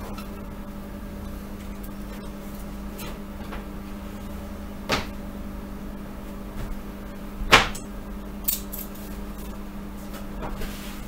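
Steady low hum with two sharp clicks, the second louder, about halfway and two-thirds through: a scalpel blade working at the metal casing of a Raspberry Pi camera module.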